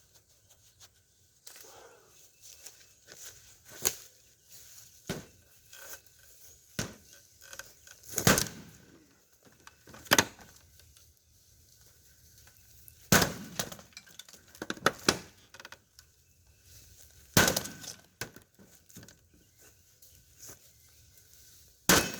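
A sledgehammer striking a plasma TV: about half a dozen hard, separate blows several seconds apart, with glass clinking and smaller knocks between them. The set is holding together under the hammer.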